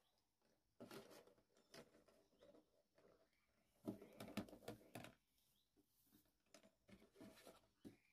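Faint rustling of husk nest bedding and light clicks as hen's eggs are set into a nest by hand, in three short bouts: about a second in, around four seconds in, and near the end.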